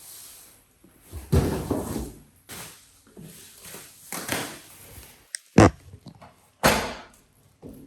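Knocks, thuds and scrapes of dining table parts being handled during assembly. The sharpest two knocks come about five and a half and nearly seven seconds in.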